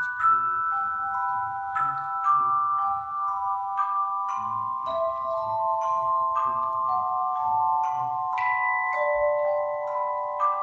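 Handbell choir playing a slow melody. Each bell is struck with a short click and left ringing, so several notes overlap.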